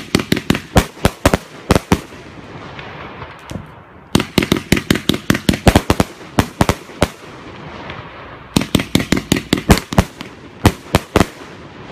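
Consumer firework cake firing: three volleys of rapid, loud bangs a couple of seconds apart, several shots a second within each volley, as the shells burst overhead.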